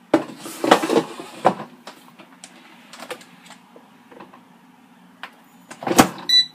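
Air fryer drawer being lifted and slid back into a Power AirFryer XL: plastic-and-metal scraping and clatter, a few light knocks, then a loud clunk as the drawer shuts about six seconds in. A short electronic beep from the fryer follows.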